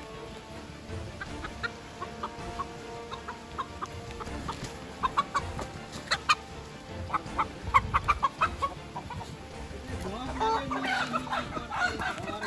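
A rooster clucking in rapid short, sharp calls as it is chased and grabbed, the calls coming thicker in the middle and turning into longer, wavering squawks near the end.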